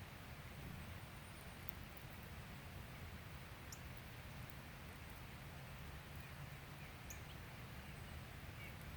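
Quiet outdoor ambience: a steady low rumble and hiss, with a few faint, short, high chirps about four seconds in and again near the end.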